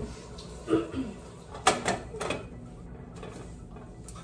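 Hard kitchen items knocking and clattering as they are handled at the sink and counter: three sharp knocks in quick succession a little under two seconds in.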